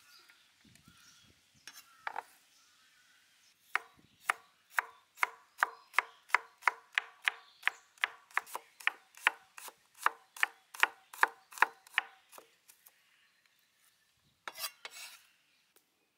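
Chef's knife chopping through garlic cloves onto a wooden cutting board: a steady run of sharp chops, about two or three a second for some eight seconds, each with a short ringing knock from the board.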